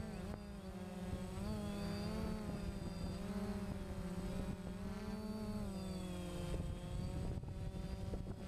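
DJI Phantom quadcopter's motors and propellers buzzing, heard from the camera on the drone itself, the pitch wavering up and down as the rotors speed up and slow. About seven seconds in the buzz weakens under a rougher rush.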